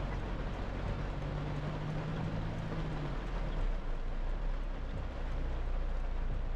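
Cab interior of a 2010 Toyota Hilux pickup driving in heavy rain: steady engine hum and tyre noise on the wet road, with rain falling on the roof and windscreen. A slightly higher engine hum comes in between about one and three seconds in.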